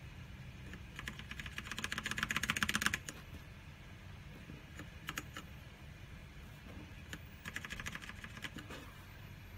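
Keys being typed fast on an Aula Wings of Liberty mechanical keyboard with black switches: a quick run of clacks about a second in, a few single keystrokes in the middle, then a shorter run near the end.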